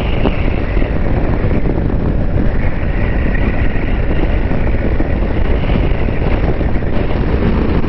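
Steady wind rush and road noise from a BMW R1250 GS Adventure motorcycle cruising at around 60 km/h on a wet road, with no change in pace.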